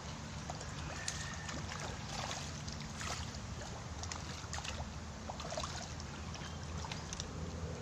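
Water sloshing and light splashing, with scattered short clicks, as a hooked freshwater pomfret (pacu) is fought on a bent rod at the pond's surface, over a steady low hum.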